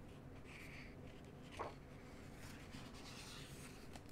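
Faint rustling of paper as a picture book's page is turned, over quiet room tone.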